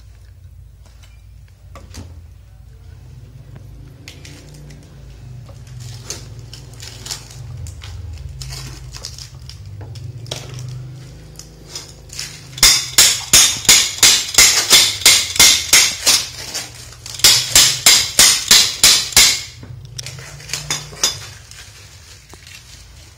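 Metal hammer blows on a metal fitting, sharp and evenly spaced at about three a second, in two runs with a short pause between, after lighter clinking and handling clatter of fittings and tools.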